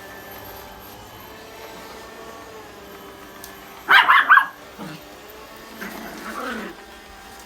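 Small dog barking: a quick burst of several sharp barks about four seconds in, then a softer, drawn-out call falling in pitch around six seconds, over a steady low hum.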